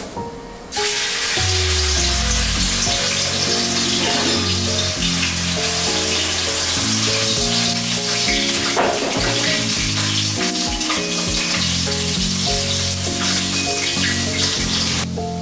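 Chicken sizzling in hot oil in a wok, starting suddenly under a second in as the piece goes into the pan, then a steady loud frying hiss.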